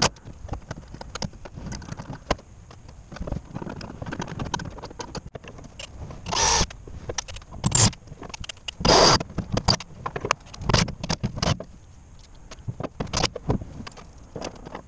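Hands working on parts in a vehicle cab: irregular clicks, knocks and light clatter of parts and tools, with three brief louder bursts of noise about six, eight and nine seconds in.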